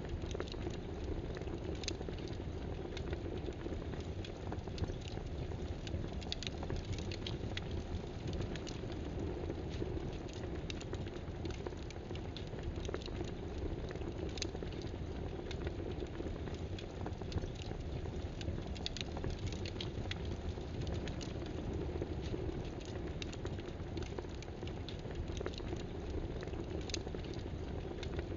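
Computer keyboard typing: scattered, irregular light key clicks over a steady low rushing background.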